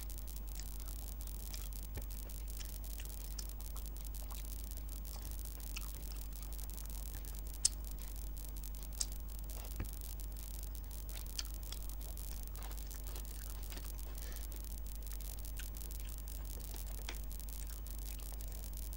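Eating by hand: fingers mixing rice and chicken curry on a plate, and chewing, heard as soft scattered clicks and squishes with a few sharper clicks around the middle. A steady low hum and hiss lie under it throughout.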